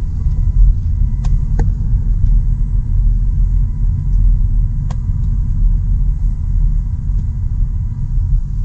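A car driving, with a steady low road rumble heard from inside the cabin and a few faint clicks.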